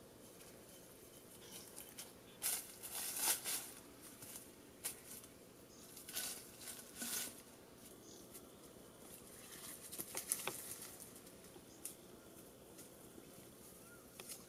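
Bare feet stepping through dry leaf litter and brush, giving a few short bursts of rustling and crunching, with sharp clicks like snapping twigs around ten seconds in.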